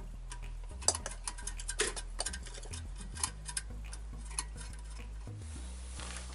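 Irregular light clicks and taps of small hard objects being handled, clustered in the first few seconds, over a steady low hum.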